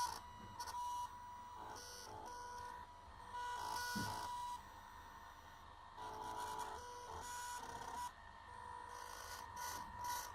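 Small stepper motors from salvaged DVD drives in a DIY CNC drawing machine, whining in short start-stop moves. The pitch changes from one move to the next.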